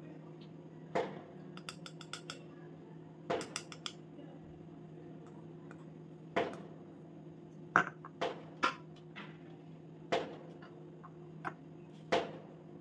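Metal fork clinking and tapping against a glass tumbler while dipping biscuits in melted white chocolate: irregular light clinks, a few close together, every second or so over a steady low hum.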